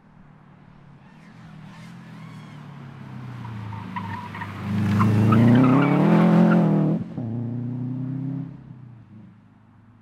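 Subaru Impreza wagon rally car's flat-four engine under hard acceleration as the car comes through a bend and passes close, with brief tyre squeal on the way in. The engine note climbs in pitch at its loudest, breaks off sharply about seven seconds in, pulls on at a lower level and fades as the car drives away.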